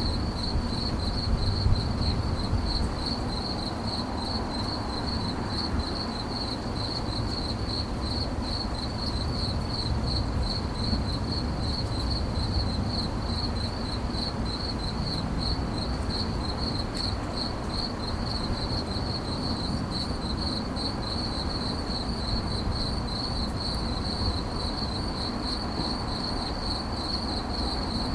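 A cricket chirping in dry grass: a high, even pulsing trill that keeps up without a break, over a low background rumble.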